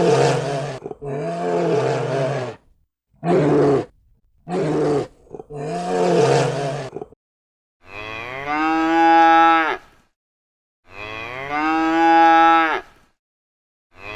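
A cow mooing twice, each a long drawn-out call of about two seconds, in the second half. These follow a string of about six shorter, rough animal calls.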